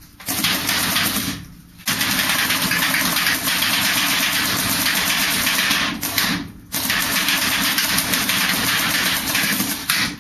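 Smart Parts Vision Impulse electropneumatic paintball marker firing rapidly in three strings: a short one, then two of several seconds each, with brief pauses between. The balls splatter on the metal garage roller door.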